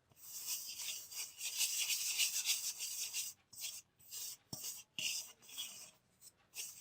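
Hands mixing dry bread crumbs and wheat flour together in a bowl: a dry rustling scrape in irregular strokes, densest in the first half and then coming in short separate strokes.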